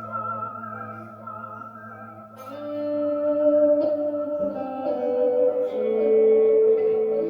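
Xotic XSC-1 electric guitar played slowly: a held note with vibrato fades away, then new notes are picked about two and a half seconds in and ring out, with further notes added twice more.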